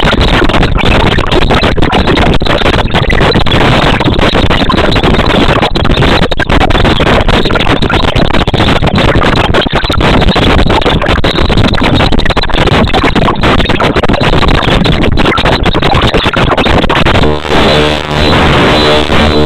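Loud, dense background music with a noisy, rushing texture; about 17 seconds in it changes to sustained droning chords.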